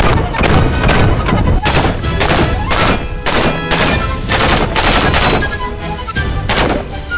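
L85A1 (SA80) 5.56 mm service rifle fired in repeated single shots at uneven spacing, over background music.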